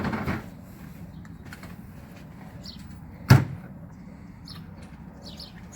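Two short knocks, like a hand tool or part striking metal: a brief cluster right at the start, and one louder, sharper knock about three seconds in. A steady low hum runs under them, and birds chirp faintly.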